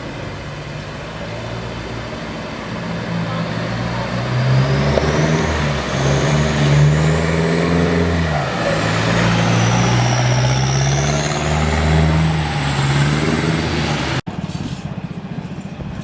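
Longtail boat engine running and revving, its pitch rising and falling, with a high whine gliding above it. The sound cuts off abruptly near the end.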